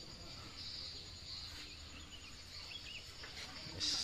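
Outdoor ambience of insects chirring steadily in a high band, with a few short bird chirps. A brief scrape comes near the end.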